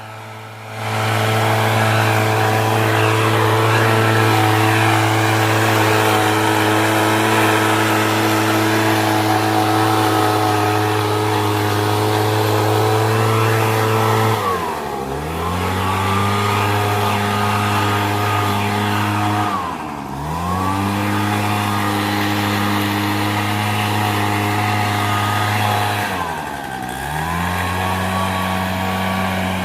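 Engine-driven leaf blower running at high throttle; three times the engine speed drops sharply for about a second as the throttle is eased off, then climbs back up.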